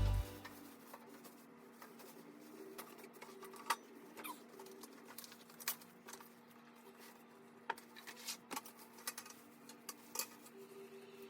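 Faint scattered clicks and taps over a low steady hum, with the tail of music cutting off just at the start.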